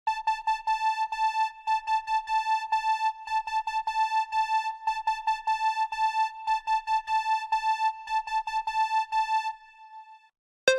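Electronic music built on a steady, buzzy alarm tone like an Emergency Alert System attention signal, held over a quick drum beat. The beat stops about nine and a half seconds in, the tone cuts off a moment later, and a new piece begins right at the end.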